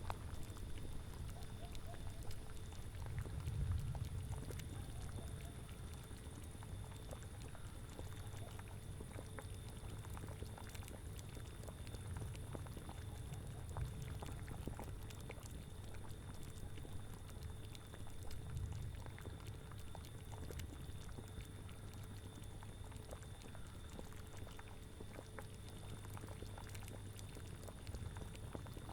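A cauldron boiling, its bubbles a steady run of small pops and gurgles, over a low rumble of wind that swells now and then.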